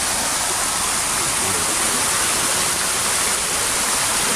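Steady rush of falling water from a garden water feature, an even hiss with no breaks.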